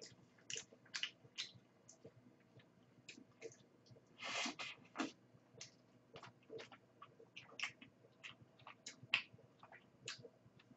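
Faint mouth sounds of eating a cream-filled donut dipped in ice cream: irregular wet smacks and clicks of chewing, with a slightly longer, louder smack about four seconds in.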